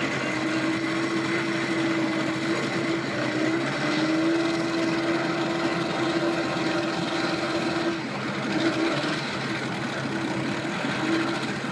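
Small outboard motor idling steadily with the boat in the water. Its hum wavers up slightly in pitch about four seconds in and weakens after about eight seconds.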